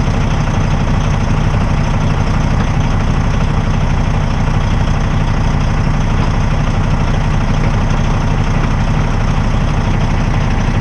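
Heavy diesel truck engine idling steadily, a deep even rumble.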